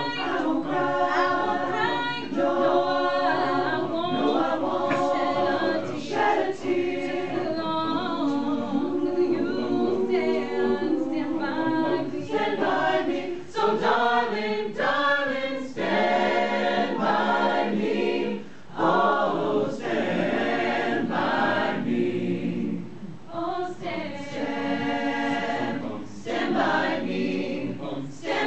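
A choir singing, phrase after phrase, with brief pauses for breath between phrases.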